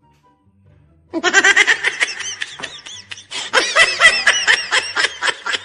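Loud, high-pitched laughing that starts suddenly about a second in, in quick rhythmic bursts that break into short gasping pulses near the end.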